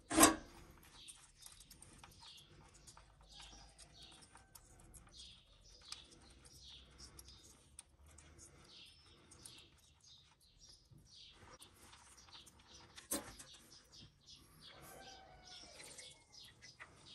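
Faint chirping of small birds, many short high chirps, with a sharp click just after the start and another about two-thirds of the way through.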